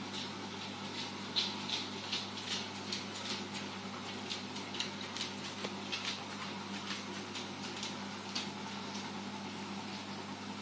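Steady low hum of reef aquarium equipment, with a run of irregular light ticks, a few a second, that thin out near the end.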